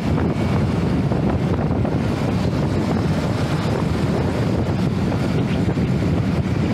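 Heavy wind rushing over a small action camera's microphone as a motorcycle rides at speed, with the motorcycle's engine running steadily underneath.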